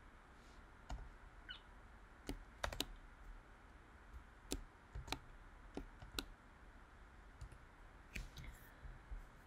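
Scattered single keystrokes on a computer keyboard: a dozen or so soft, separate clicks at an unhurried, irregular pace.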